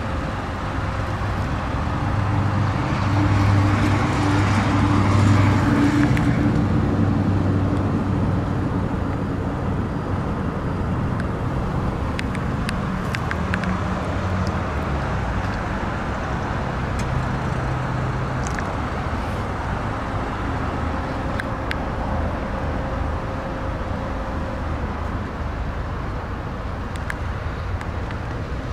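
Steady low hum of motor-vehicle engines, swelling louder for a few seconds about two seconds in.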